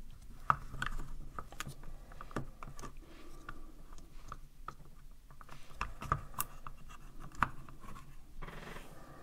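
Light handling noise with scattered small clicks, knocks and scrapes, from a circuit board being worked back into a plastic power-supply case around its transformer.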